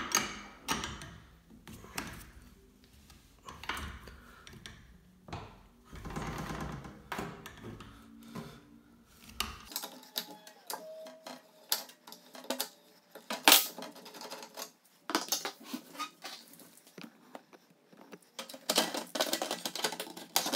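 Metal wrench clinking and knocking against the exercise bike's pedal crank, and its plastic side shroud being handled. Scattered irregular clicks and knocks, the sharpest about two-thirds of the way in, with a quick run of clatter near the end.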